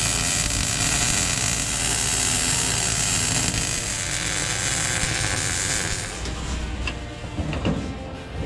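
MIG welder arc crackling steadily as a steel pedal mounting bracket is welded to a truck's firewall. The arc stops about six seconds in, followed by a few light metal clicks.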